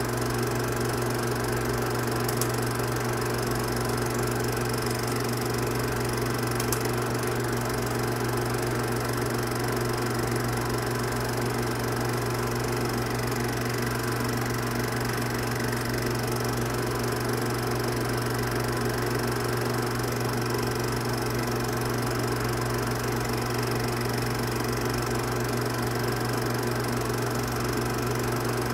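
A film projector running, giving a steady mechanical hum and whir that does not change.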